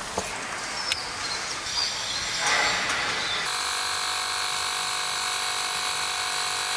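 A few clicks and handling noises, then about halfway through a Fanttik X8 Apex portable tire inflator's electric compressor starts running with a steady, even hum while pumping up a tire.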